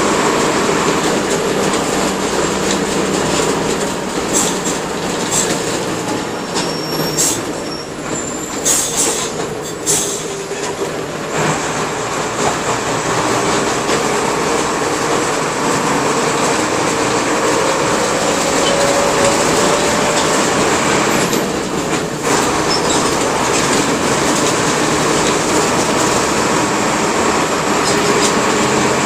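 Mercedes-Benz OF-1721 bus's OM-366LA turbodiesel inline-six running under way, with a steady engine note and road noise. Scattered clicks and rattles come between about four and eleven seconds in, and the engine pitch slowly rises later on.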